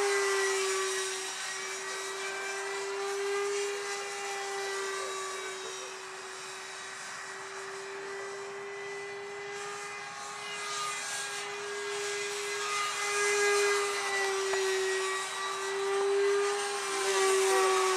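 Electric ducted fan of a foam RC F-16 jet in flight: a 70 mm fan driven by a brushless motor, giving a steady high whine. It swells louder near the start and twice in the second half as the plane passes, and the pitch bends slightly on each pass.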